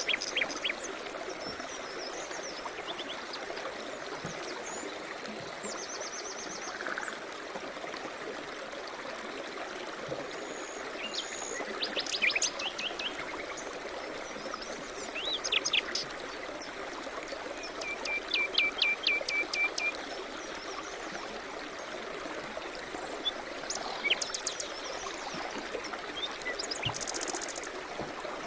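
A steady rush of flowing river water, with songbirds chirping and singing over it in scattered phrases, including a run of quick repeated notes near the middle.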